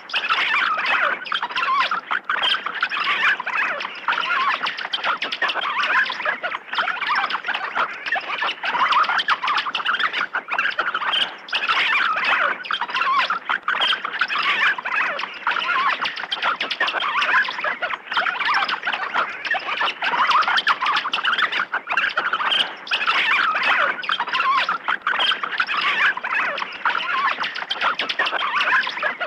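A crowd of bats squeaking and chittering together: a dense, unbroken chorus of many overlapping high chirps.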